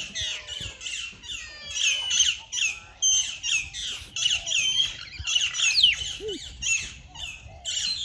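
A crowd of small birds chattering and squawking: many high, overlapping calls with quick downward sweeps, several at once, with no break.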